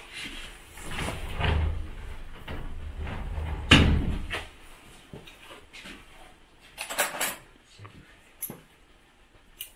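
Scattered short clicks and snips as pruning shears and hands work the branches of a pine bonsai, with one louder knock about four seconds in.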